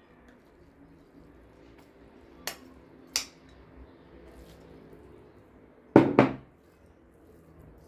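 Metal spoon clinking against a pan while scooping out meat-and-rice filling: two light clinks, then two louder knocks close together near the end.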